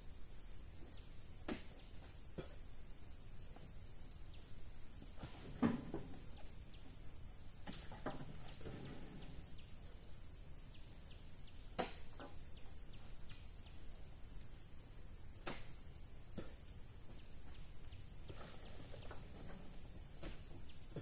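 Steady high-pitched drone of insects, with a few scattered sharp knocks and some rustling; the loudest knock comes about six seconds in.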